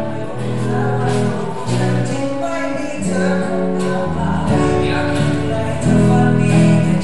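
Electric guitar playing held chords that change about once a second, with a deep bass line joining about four seconds in: live band music.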